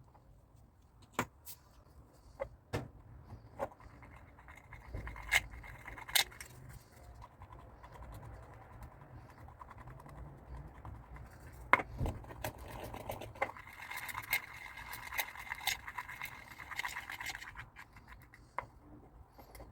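Hand work on a stainless-steel whisk and a strainer handle: scattered sharp metal clicks and taps, with two longer stretches of rasping scraping.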